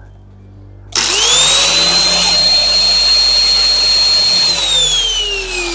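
A 1200 W angle grinder switched on about a second in: its motor whines up to full speed within a fraction of a second, with no soft-start limiter, and runs steadily. After about three and a half seconds it is switched off and winds down with a falling whine.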